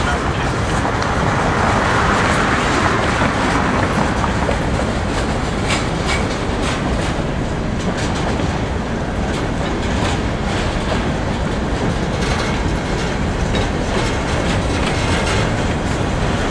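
Freight train rolling past close by: a steady rumble of steel wheels on the rails, with scattered clicks as the wheels pass over rail joints.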